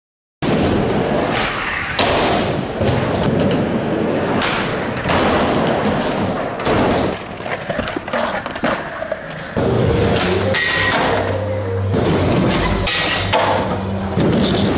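Skateboard wheels rolling on concrete, with repeated sharp clacks and thuds from the board as tricks are popped and landed and as it slides along concrete ledges. It starts suddenly about half a second in.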